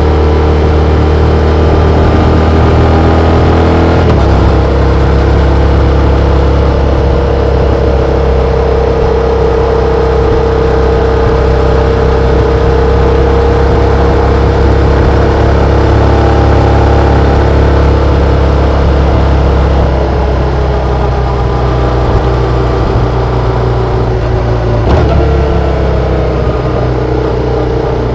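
Yamaha XSR700's 689 cc parallel-twin engine pulling steadily under a riding motorcycle, heard from on board. The engine note shifts in pitch about four seconds in and again near the end.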